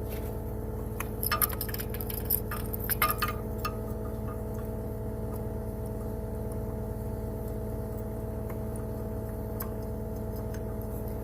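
Small metallic clicks and clinks in a cluster between about one and three and a half seconds in, as the multi-pin electrical connector for a forestry mulcher head is worked into its socket. A steady low machine hum runs underneath.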